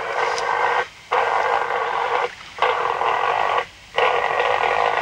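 Computer-reconstructed moa call played back from tape through a loudspeaker. It is a thin, rasping sound with no clear pitch, repeated four times in bursts of about a second with short breaks between them.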